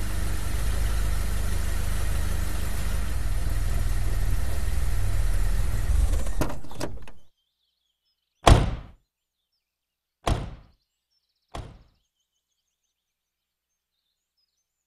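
An SUV's engine running with a heavy low rumble, cut off about seven seconds in. Then its doors are slammed shut three times, each slam quieter than the last.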